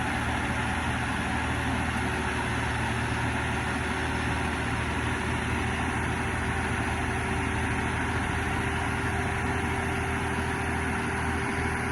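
Heavy engine running steadily at an even speed, with a faint steady whine over it.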